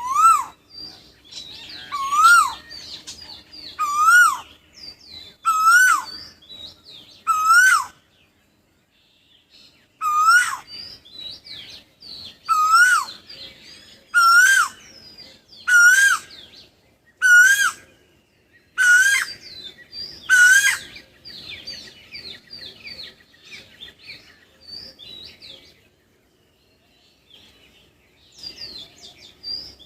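A bird repeating a loud call that rises and then falls, about a dozen times at roughly one-and-a-half-second intervals in two runs with a short break between. Fainter, higher chirping from other birds runs underneath and thins out near the end.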